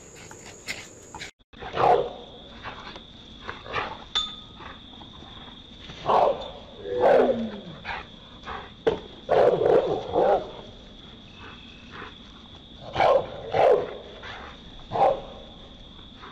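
Small dogs barking in short bursts, single barks and quick pairs, a second or more apart, with sharp clicks in between.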